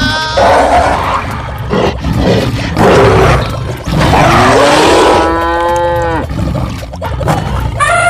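Cow mooing, a cartoon sound effect: one long moo about halfway through that rises in pitch and then holds. Before it come several short, rough, noisy animal sounds.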